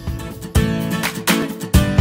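Background intro music of strummed guitar chords, starting about half a second in.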